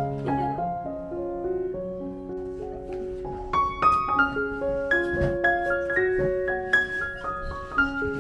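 Background piano music playing a gentle melody of single notes and chords.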